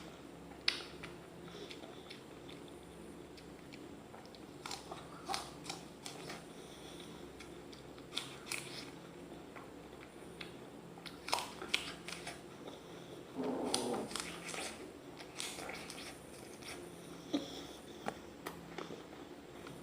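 A raw apple being bitten and chewed: irregular crisp crunches, with a louder, fuller crunching stretch a little past the middle.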